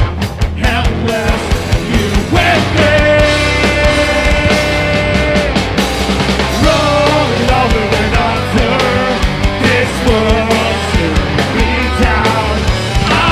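Rock band playing a song, with a long held note from about two and a half seconds in to about five and a half seconds.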